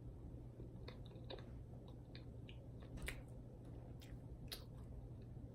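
Faint close-up eating sounds from a mouthful of moist chocolate cake: soft chewing with scattered small wet mouth clicks, one a little louder about three seconds in.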